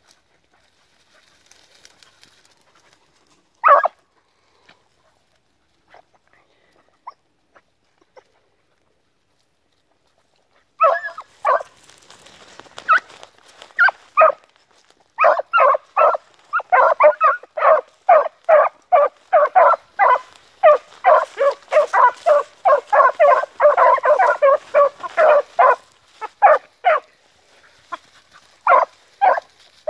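Beagle hounds giving tongue on a rabbit's scent line, the sign that they are on the track: a single yelp about four seconds in, then after a pause a long run of short, quick barks, about three a second, that thins out to a few barks near the end.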